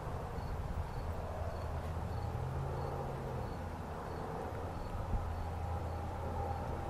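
A cricket chirping evenly, about one and a half high chirps a second, over a steady low rumble.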